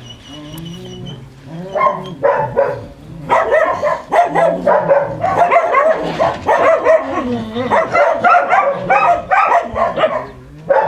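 Several dogs barking rapidly, their barks overlapping, starting about two seconds in and stopping shortly before the end.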